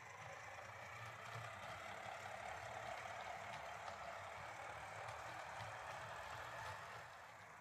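Jouef TGV model train running on its track, its motor and gearing giving a faint steady whirr over the wheels' rumble. It grows louder about a second in and falls back near the end. It is a little noisy, which the owner puts down to crude gearing and a low-quality motor.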